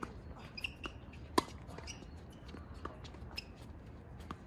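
Tennis rally on a hard court: sharp pops of racket strings meeting the ball and the ball bouncing, the loudest about a second and a half in, mixed with short, high squeaks of sneakers on the court surface.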